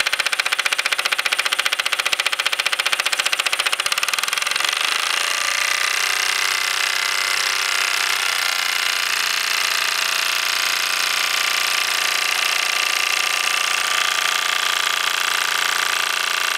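Mamod SE2 model steam engine running under steam, its single oscillating cylinder giving rapid, even exhaust chuffs. About four to five seconds in, the beats blend into a smoother, steady running sound.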